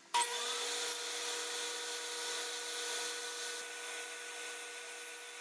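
Ridgid R4513 jobsite table saw spinning up and then running at a steady, high-pitched whine while its spinning blade is slowly raised up through the PVC zero-clearance tape on the throat plate, cutting the blade slot.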